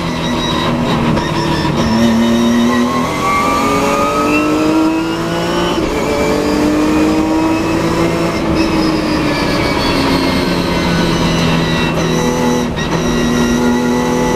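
Nissan 370Z race car's V6 engine heard on board, accelerating hard with its pitch rising and one upshift about six seconds in. After about eight seconds the engine note falls steadily as the car slows for the next corner.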